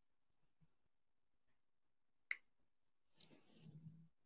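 Near silence, broken by a single sharp click on a laptop about two seconds in, with a few faint soft sounds near the end.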